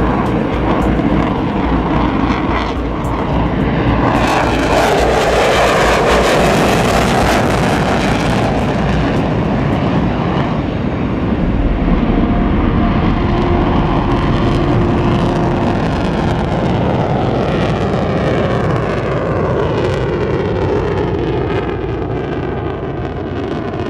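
Air-show aircraft flying past, a loud continuous roar that swells about four to eight seconds in and then slowly fades, its tone sweeping as it passes.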